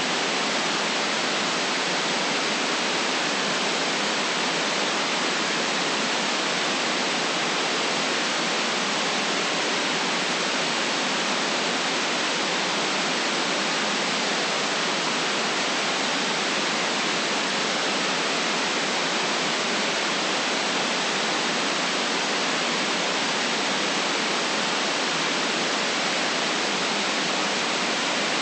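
Steady, unchanging white noise: an even hiss with the deepest lows and the highest highs cut off.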